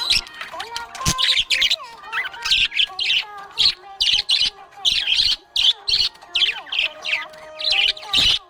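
Budgerigar chirping: a quick run of short high chirps, about two a second, mixed with softer warbling.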